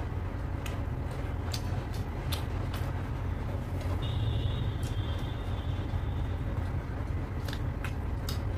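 A steady low rumble, with scattered short clicks and smacks of eating by hand: chewing, and fingers picking at pieces of mutton curry. A faint, brief high tone sounds near the middle.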